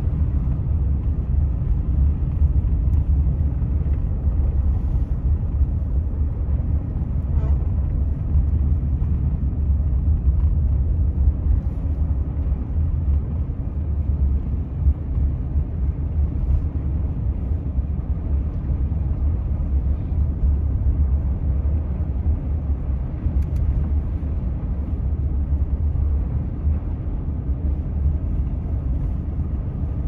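Road noise of a car driving on a snow-covered highway: a steady low rumble.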